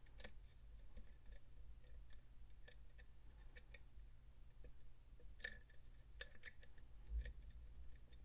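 Faint, scattered clicks of a lock pick working the pins of an ASSA Max+ restricted lock under tension, the loudest click about five and a half seconds in.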